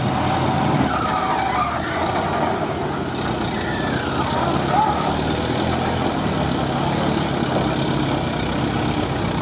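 Heavy diesel engine running steadily at a low, even idle.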